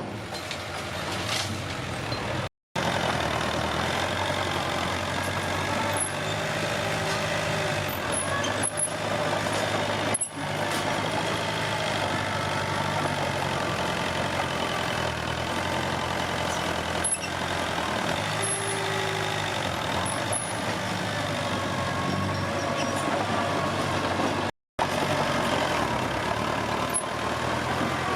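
Komatsu D21P bulldozer's diesel engine running steadily as it works, broken twice by a split-second gap in the sound, once about two and a half seconds in and once near the end.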